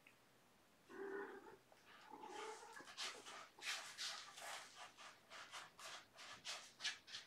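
A cat's short meow about a second in, followed by a run of quick, rough rustling scrapes, a few a second, as a kitten is handled on a cardboard scratcher.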